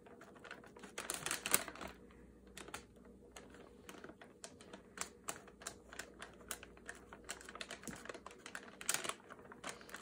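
Ballpoint pen writing on a brown paper bag: a run of short, irregular scratching strokes.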